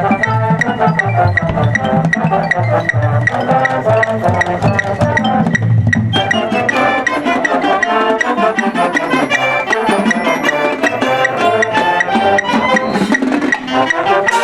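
Marching band playing live: brass over keyboard and mallet percussion with a steady ticking pulse. The music breaks off briefly about six seconds in, then the next phrase starts.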